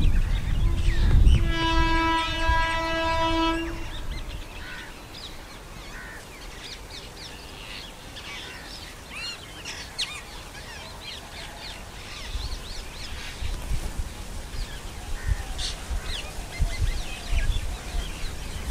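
An Indian Railways WAP-7 electric locomotive sounds its horn in one long, steady blast of about three seconds as it approaches. Birds chirp after that, and the low rumble of the oncoming train builds over the last several seconds.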